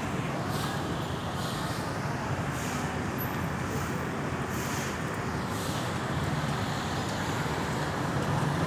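Road traffic noise with a vehicle engine running steadily, plus a faint hiss recurring about once a second; no siren is sounding.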